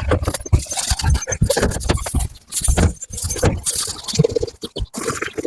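Irregular scraping and rubbing strokes as the steel Bilco cellar door is wiped down before painting.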